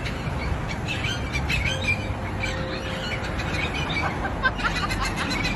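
A flock of crows calling, with many short overlapping calls, over a steady low background rumble.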